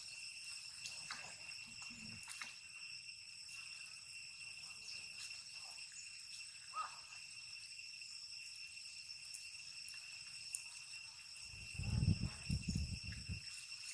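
A steady, high-pitched insect drone made of several constant tones. A brief squeak comes about seven seconds in, and a short spell of low rumbling thumps comes near the end.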